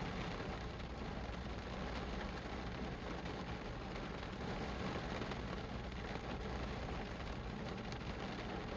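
Steady rain falling, a continuous even hiss without breaks.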